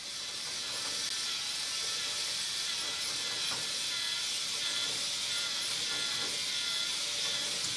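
K'nex helix ball lift running: its motor whirs steadily as it turns the plastic helix and gearing. The whir rises over the first second, then holds, with occasional light clicks.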